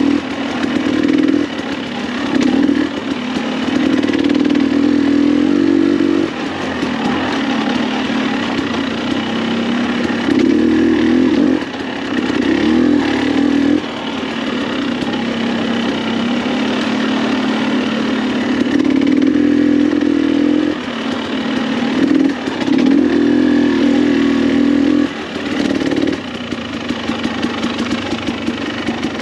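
2021 KTM 300 XC-W TPI's single-cylinder two-stroke engine, exhausting through an FMF spark-arrestor muffler, heard from on the bike while riding: the throttle is opened and rolled off again and again, so the engine note rises and drops every couple of seconds.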